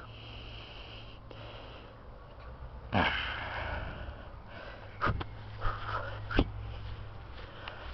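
Siberian husky puppy huffing and snorting through its nose while mouthing a hand, with a louder huff about three seconds in. A few short clicks follow in the second half.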